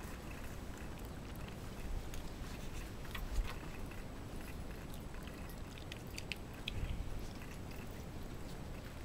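Shiba Inu dogs eating, chewing their food with scattered small clicks and crunches.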